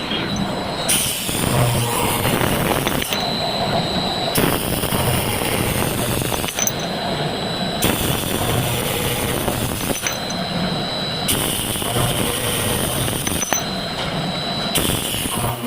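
Automatic circular saw machine running through repeated cutting cycles. About every three and a half seconds a cut of roughly two seconds adds a high-pitched hiss and whine over the steady machine noise, then it drops back between cuts.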